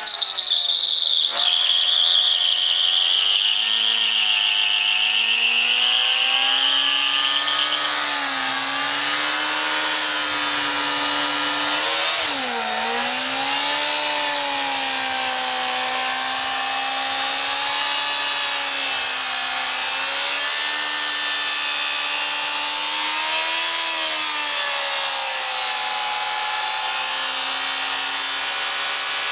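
Yamaha Fazer 600's inline-four engine held at high revs through a burnout, the rear tyre spinning on paving; the revs waver up and down and dip sharply about twelve seconds in. A high tyre squeal rides over the engine for the first seven seconds or so.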